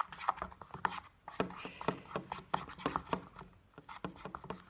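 A stick stirring shaving foam into peel-off face mask in a box, mixing slime: irregular sticky clicks and light scraping, several a second, easing off near the end.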